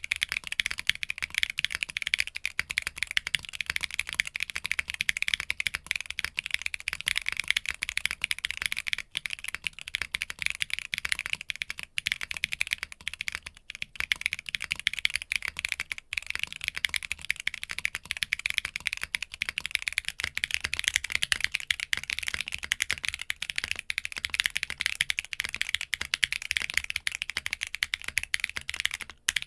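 Continuous fast typing on an Arc60 60% mechanical keyboard with lubed Zaku II switches, a dense clatter of keystrokes. It is heard in turn mounted on polycarbonate, POM and polypropylene plates, with brief breaks between the takes.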